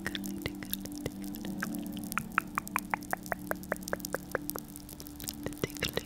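ASMR crackling sounds made close to the microphone to imitate a campfire: irregular sharp clicks and pops, with a run of evenly spaced clicks about five a second in the middle, over steady low background music.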